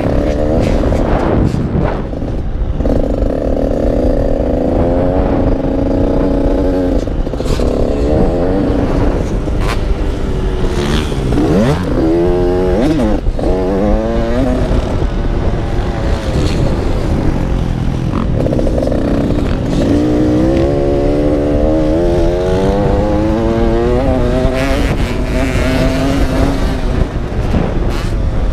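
KTM motocross bike's engine heard on board from the rider's helmet, revving up and falling off again and again as it is ridden around the track, with quick sharp drops and climbs in pitch about twelve seconds in. A steady low rumble of wind and track noise runs underneath.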